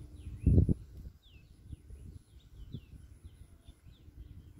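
Birds chirping in short, repeated sweeping calls over a faint high pulsing trill, with a short loud thump about half a second in.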